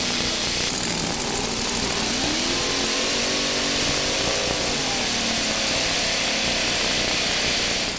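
Two supercharged engines of a modified pulling tractor running loud and hard, the pitch rising and falling as the tractor revs and launches off the line.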